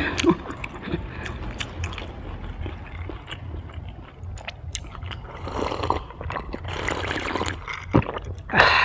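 Close-miked mouth sounds: small wet clicks of chewing fried kimbap, then sips and gulps of iced cola from a glass mug about five seconds in. A low steady hum runs underneath.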